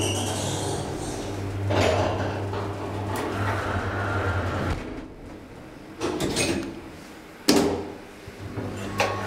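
DEVE hydraulic elevator's drive humming steadily, then cutting out about five seconds in. Two louder clattering bursts from the elevator's sliding doors follow, at about six and seven and a half seconds.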